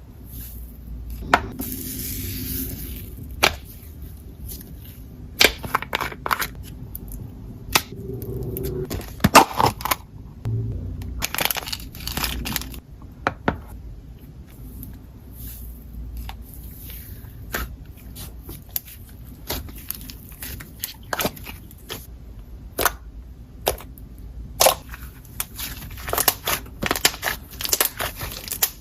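Slime being squished, stretched and poked by hand, making irregular sticky clicks, pops and crackles, denser in short bursts.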